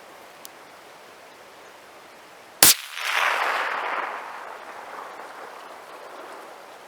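A single suppressed rifle shot about two and a half seconds in, followed by a long rolling echo that fades over the next two seconds or so.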